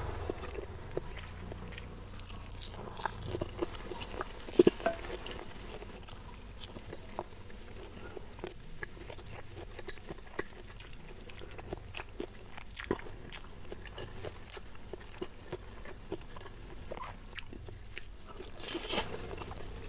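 Close-miked chewing of crispy fried chicken and rice, with many small wet mouth clicks. There are a few louder crunches a few seconds in, and one louder crunchy bite just before the end.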